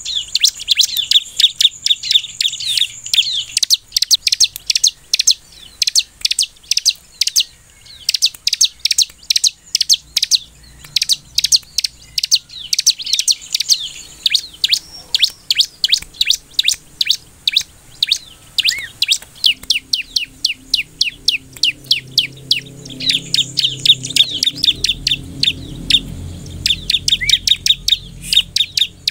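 A ciblek (prinia) singing: fast runs of sharp, high chirps, several a second, broken by brief pauses. A faint low rumble sits under the song in the last third.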